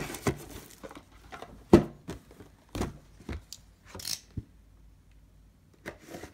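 Cardboard trading-card box being handled: a string of short knocks and rustles, the loudest knock about two seconds in, then a quiet stretch near the end.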